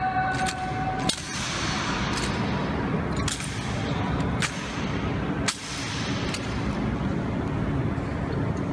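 Honor guard rifle drill: several sharp clacks, roughly a second apart, of rifle butts and boot heels striking the stone floor, each echoing in the large hall over steady background noise.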